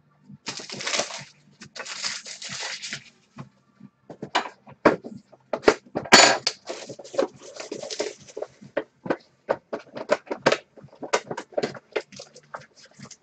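A hobby box of trading cards being unwrapped and opened by hand. There is a rustle of its plastic wrap for the first few seconds, then a run of crinkles and sharp cardboard taps, loudest about six seconds in.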